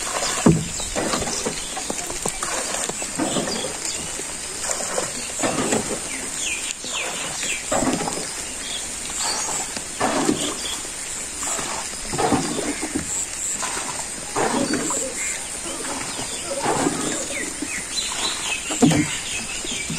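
Rainwater being bailed out of a wooden boat by hand: water is scooped up and thrown overboard, splashing down about once a second, over and over.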